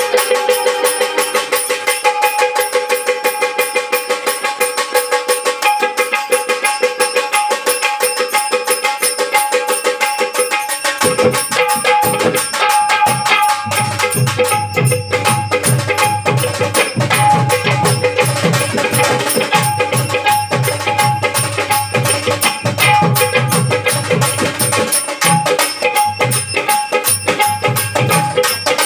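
Instrumental folk music: a banjo plays a fast, rapidly plucked melody over steady held tones. A hand-drum beat joins about eleven seconds in and keeps a lively lavani rhythm.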